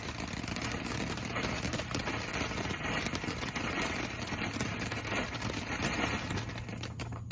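A lit consumer firework spraying sparks with a steady hissing crackle, which stops abruptly at the end.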